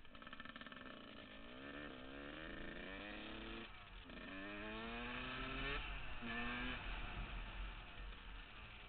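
2000 Yamaha YZ125's single-cylinder two-stroke engine accelerating through the gears, its pitch climbing in each gear and dropping at two upshifts about four and six seconds in, then easing off near the end.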